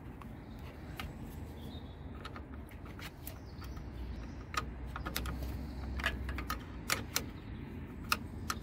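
Irregular sharp metallic clicks and taps of a hand socket wrench being fitted to and worked on a car battery's positive terminal clamp nut, about nine clicks spread out, a couple in quick pairs.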